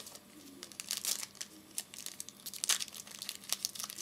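Trading-card pack wrapper crinkling and tearing as it is opened, a run of irregular crackles.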